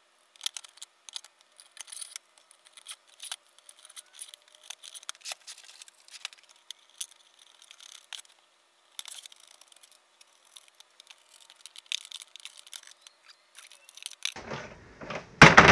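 Irregular clicks, taps and light knocks of a metal rod, nuts and washers being handled and fitted against a clear plastic storage box. The sound is thin, with no bass, and there is a louder knock near the end.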